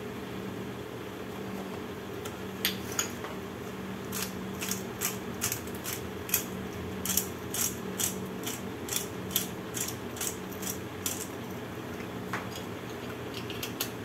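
Kitchen utensils clinking lightly in a rhythmic run of short clicks, about two or three a second, as black pepper is added to the kibbeh wheat mixture; they stop a few seconds before the end. A low steady hum runs underneath.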